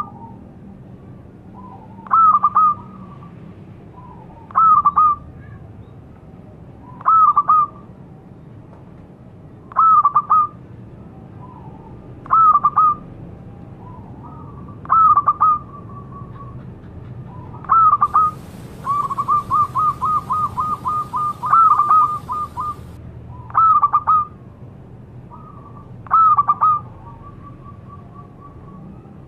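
Zebra dove (perkutut) cooing: short phrases of quick, high coo notes repeated about every two and a half seconds, with one longer run of rapid notes about two-thirds of the way through.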